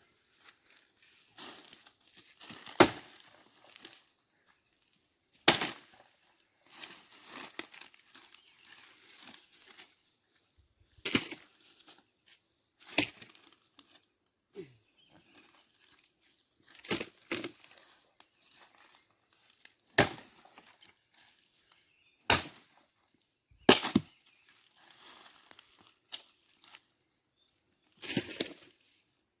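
Axe blows on dry cashew wood: about nine sharp, separate strikes spaced a few seconds apart.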